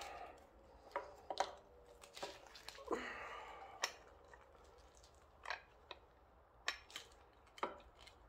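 Gloved hands handling a motorcycle gauge and its metal mounting bracket as they are fitted into the headlight bucket: scattered small clicks, taps and brief scrapes at irregular intervals.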